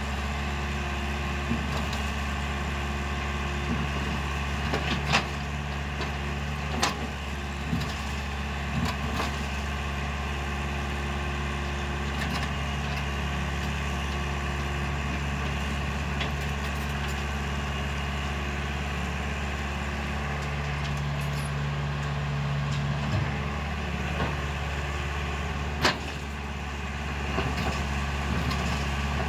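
Crawler excavator's diesel engine running steadily while it digs and loads broken rock, with sharp clanks and knocks of the bucket on rock every few seconds, the loudest near the end.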